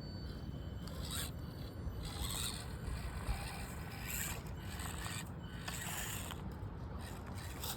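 SCX24 Deadbolt micro RC crawler's small brushed motor and gears whirring in short bursts as it crawls over rough ground, with wind rumbling on the microphone.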